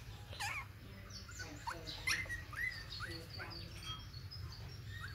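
Young puppies whimpering in a series of short, high squeaky calls, each a quick rising or falling squeak, scattered through the few seconds.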